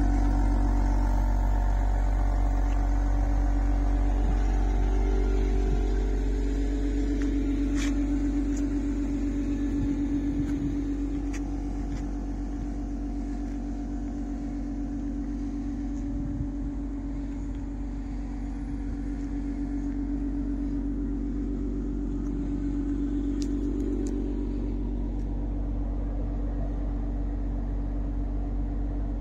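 Lotus Emira's supercharged 3.5-litre V6 idling steadily, a low rumble that is loudest at first and grows somewhat quieter about a third of the way in.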